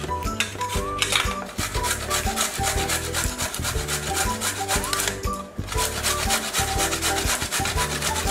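Carrots being grated by hand on a stainless-steel box grater: quick, regular rasping strokes, over background music.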